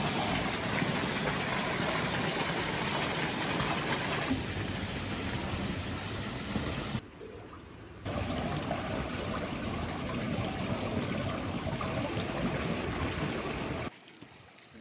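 Water from a pool's spout pouring and splashing steadily into the pool, a rushing noise that shifts at a few cuts, dips quieter for about a second around seven seconds in, and falls much quieter near the end.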